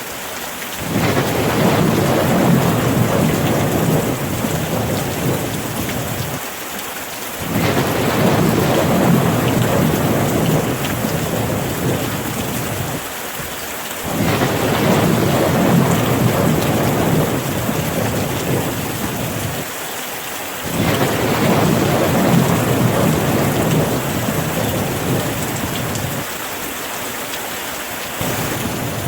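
Steady rain with rolling thunder: a low rumble swells up and dies away four times, about every six to seven seconds, over the constant hiss of the rain.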